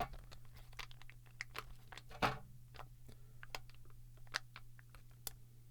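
Irregular small plastic clicks and creaks from a tool being forced into the clips of a plastic ink cartridge to pry the case apart, with one louder crack about two seconds in.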